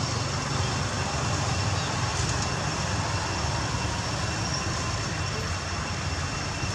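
Steady outdoor background noise with a low rumble, like distant road traffic.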